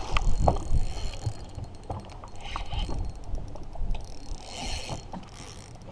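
Small waves lapping around a small boat on open water, with a low rumble and a few faint knocks and clicks.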